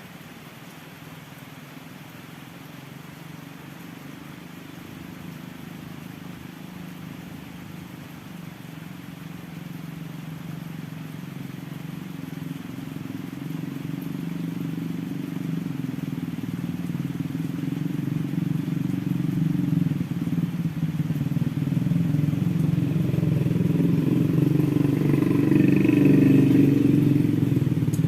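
A motor vehicle's engine running and drawing steadily nearer, growing louder until it is loudest just before the end.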